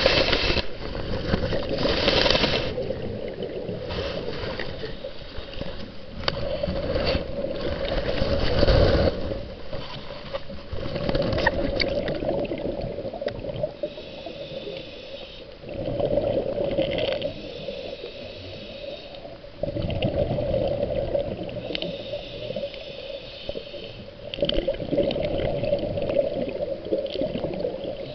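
Muffled underwater sound picked up by a submerged camera: water swirling and bubbling against the camera in uneven swells, over a steady hum.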